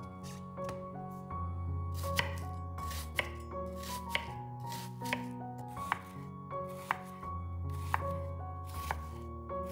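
A knife chopping on a cutting board, about one stroke a second, over background music.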